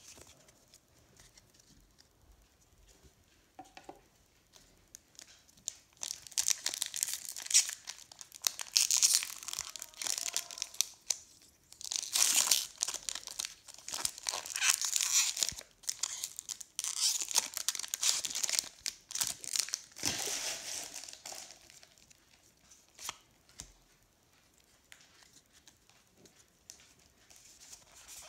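Foil wrapper of a Pokémon TCG Lost Origin booster pack being torn open and crinkled, in crackly bursts for about fifteen seconds through the middle. Before and after, there are soft clicks of trading cards being handled.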